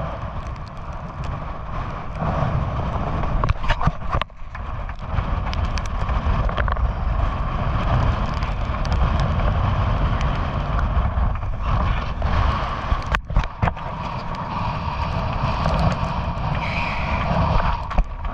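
Gale-force wind buffeting the microphone in a heavy, continuous rumble, with a few sharp knocks from gear on deck.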